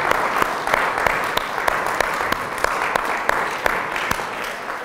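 A congregation applauding, many hands clapping together, slowly dying away toward the end.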